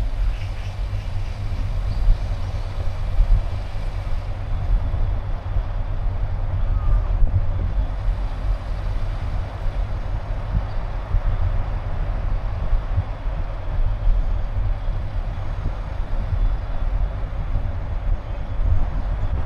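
Steady low rumble of a car on the move: engine and tyre road noise.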